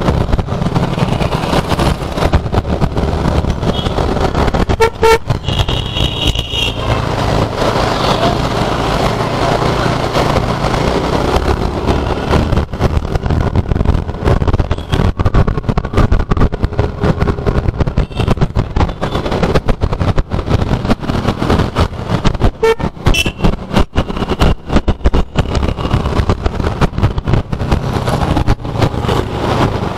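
TVS Jupiter scooter's single-cylinder four-stroke engine running while riding in traffic, heavily overlaid by wind rushing over the helmet-mounted camera's microphone. Vehicle horns beep about five seconds in and again around twenty-three seconds in.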